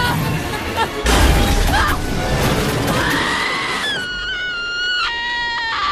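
Loud crashing, shattering noise mixed with music, starting about a second in, then a long high-pitched scream held through the last couple of seconds.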